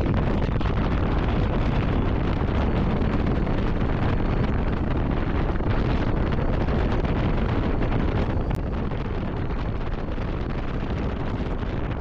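Wind buffeting the microphone of a moving motorcycle, with the engine and the tyres on a gravel dirt track underneath as a steady rumbling noise. The level drops slightly a little past eight seconds in.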